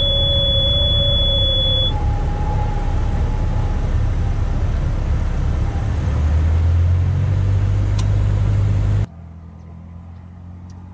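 Light single-engine airplane's piston engine and propeller droning loudly in the cockpit. A steady high-pitched warning tone sounds for about the first two seconds, and fainter wavering tones come and go. The low drone swells about six seconds in, then cuts off abruptly to much quieter outdoor sound near the end.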